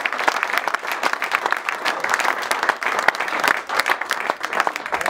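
A small crowd applauding, with many hands clapping densely and steadily.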